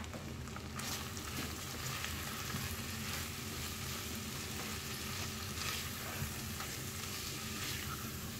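Silicone spatula stirring cubes of cooked beef with spices and chopped green chillies around a stainless steel saucepan, over a steady light sizzle from the pan, which is still hot from browning though the stove has just been switched off.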